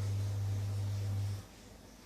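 A steady low hum that cuts off about one and a half seconds in, leaving near quiet.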